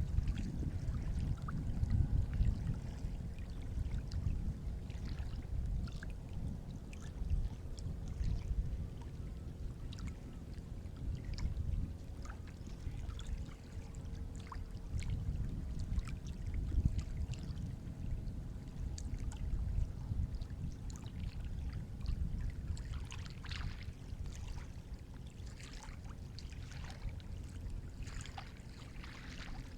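Sea waves washing in: a low, surging rumble of surf that swells and eases, with scattered small splashes.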